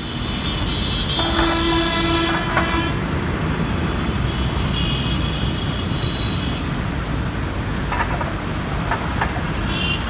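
Road traffic with a steady low rumble; a vehicle horn honks about a second in and holds for over a second, and a higher-pitched toot sounds around the middle.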